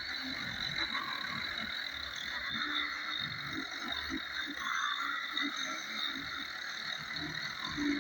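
Electric hand grinder running steadily while sanding a carved wooden door, a constant high whine.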